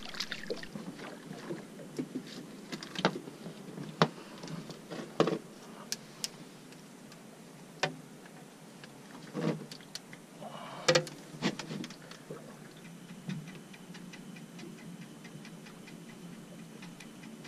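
Scattered sharp knocks and taps, about a dozen over the first thirteen seconds, as a black sea bass and the rig are handled on a boat deck while it is unhooked. In the last few seconds there is only a faint steady background.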